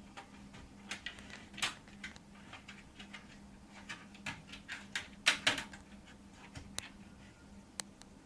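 Cables and plastic parts being handled and tugged while routing cables inside a PC case: scattered clicks, taps and rustles, with the loudest cluster about five seconds in. A faint steady hum runs underneath.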